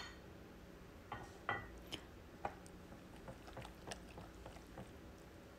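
A spatula stirring egg batter thick with chopped potatoes and vegetables in a glass bowl: faint wet squelches and light clicks against the glass, a few louder ones in the first couple of seconds, then softer ones.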